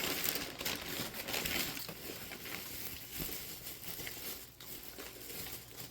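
Packaging crinkling and rustling as reborn doll kit parts are lifted out of their box, louder in the first couple of seconds and fading toward the end.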